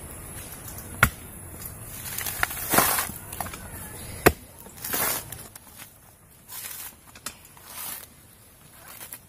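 Coconut being husked on an upright iron husking spike: rough ripping bursts as the fibrous husk is levered and torn off the nut, with two sharp knocks in the first half.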